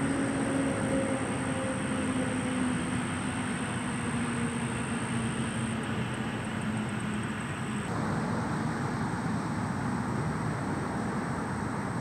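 Steady rumble of a distant motor engine, with a low hum that slowly drops in pitch over the first few seconds. The hiss above it thins out about eight seconds in.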